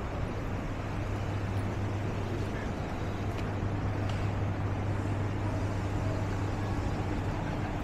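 City street traffic noise with a steady low droning hum, like an idling engine, that fades out near the end.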